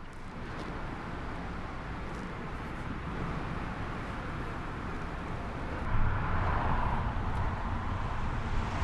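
Engine and tyre noise inside a moving car, a steady rumble that gets louder about six seconds in.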